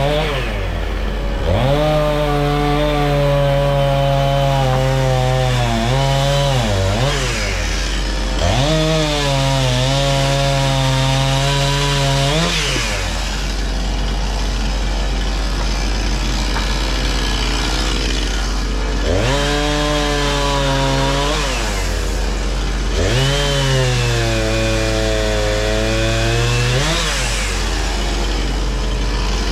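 Chainsaw cutting firewood: the engine revs up and holds high for several seconds through each cut, then drops back, about five times, over a steady low engine hum.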